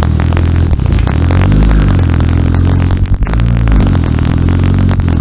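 Car engine running loudly with a rattly, clattering note, revved twice so that its pitch rises and falls.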